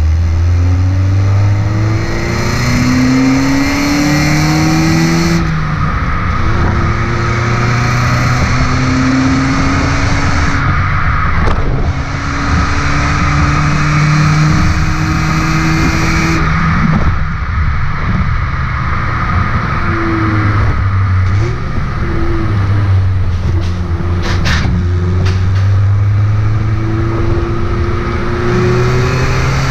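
Kia Elan's 1.8-litre naturally aspirated engine, heard through its stock exhaust while driving. The engine note climbs in pitch under acceleration and drops back at each gear change, several times over.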